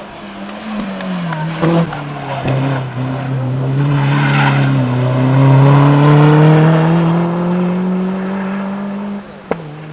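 A rally car's engine coming close and passing at speed. The note drops about a second in, holds, then climbs steadily under acceleration. A sharp crack comes near the end, and then the engine sound falls away.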